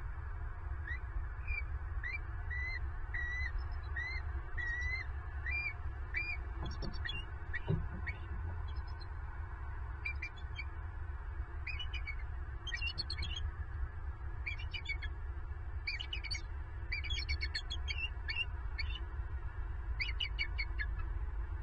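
Bald eagles calling at night: a run of high, evenly spaced chirped notes, then repeated quick stuttering chitters every second or two.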